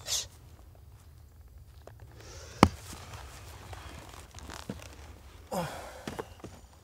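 Quiet rustling and footsteps on dry leaf litter, after a short breathy sound at the start, with one sharp click about two and a half seconds in that is the loudest sound.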